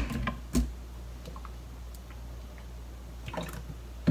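Plastic seasoning bottle and its flip-top cap being handled: a sharp click about half a second in, then a few faint taps and clicks over a quiet background.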